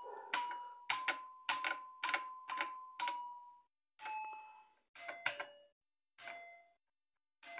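Bet buttons on an electronic fruit slot machine being pressed, each press a click answered by a short electronic beep. About nine quick presses come in the first three and a half seconds, two to three a second. Then a few slower presses follow whose beeps are lower in pitch.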